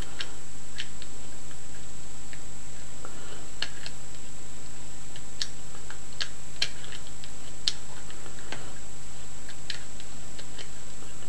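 Bicycle-spoke wire picks working inside a very old padlock: scattered, irregular small metallic clicks and light scraping as the wire probes the lock's internals.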